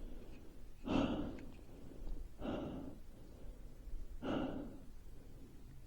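A person breathing heavily close to the microphone: three long, sighing breaths about a second and a half apart.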